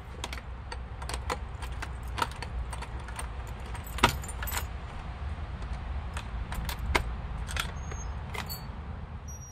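Keys jangling and clicking against the metal lock of an old wooden door as it is unlocked and pulled open, with many sharp clicks, the loudest about four seconds in. A low steady rumble runs underneath.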